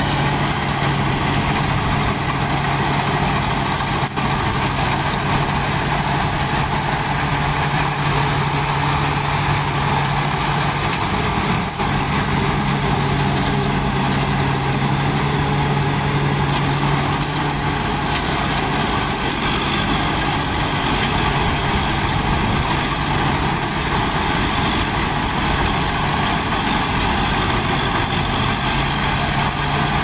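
Sakpatana rice combine harvester running steadily under load as it cuts and threshes rice, a constant low engine hum with a thin high whine that wavers slightly in pitch.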